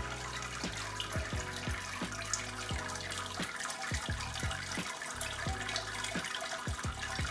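Wort draining out of a Grainfather's lifted grain basket into the boiler below, trickling, with drops plopping into the liquid about twice a second.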